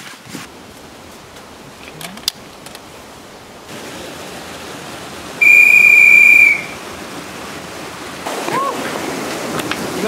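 A loud, steady whistle blown once for about a second, a start signal for setting off. Rushing stream water underneath, growing louder near the end.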